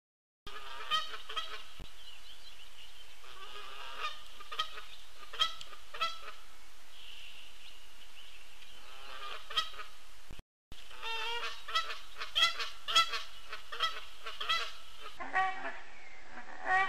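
Geese honking off and on, with single honks at first and then a quick flurry of overlapping honks about two-thirds of the way through. The sound cuts out briefly twice.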